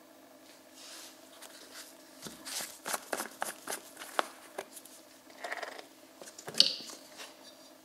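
Plastic screw cap being twisted off a plastic engine oil bottle: a run of quick plastic clicks as the cap turns, then a short rustle and one sharp click about two-thirds of the way through.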